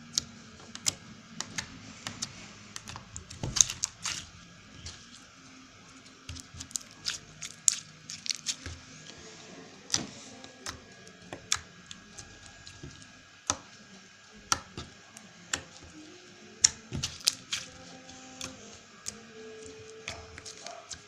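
Skifidol super fluffy slime squeezed and stretched by hand, making irregular sharp clicks and squishy pops, a few every couple of seconds.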